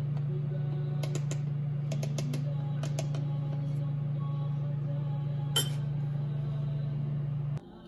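Light clicks and scrapes of a metal spoon scooping peanut powder into a glass bowl, with a sharper clink of the spoon against the glass about five and a half seconds in. A steady low hum runs underneath and cuts off just before the end.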